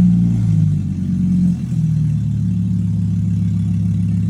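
Newly installed engine in a 2013 Volkswagen Jetta SportWagen running with no exhaust attached, straight out of the open header, just after starting. It runs a little faster and louder at first, settles about a second and a half in, then idles steadily.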